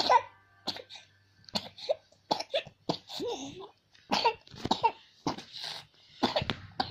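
A sick child coughing over and over: a long run of short, sharp coughs with brief gaps for breath.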